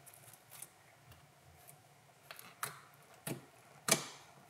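Fluffy white slime with styrofoam beads being squeezed and poked by hand, giving a handful of sharp clicks and pops from trapped air. The pops are sparse and faint at first and louder toward the end.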